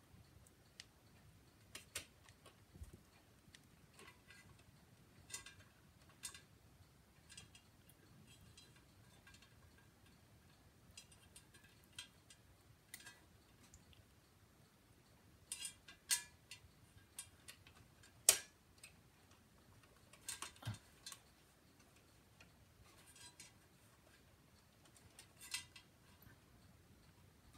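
Faint, irregular clicks and light metallic clinks of ceiling fan parts and small hardware being handled during assembly, with a few sharper ones in the second half.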